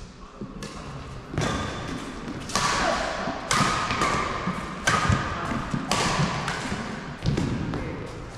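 Badminton rackets striking a shuttlecock back and forth in a rally: six sharp hits about a second apart, each echoing in the large hall.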